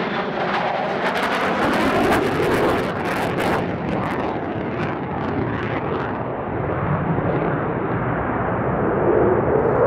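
F-35A fighter jet's single turbofan engine on a low, fast pass: loud jet noise with a ragged crackle in the first few seconds. Then the hiss fades and a duller rumble carries on as the jet moves away.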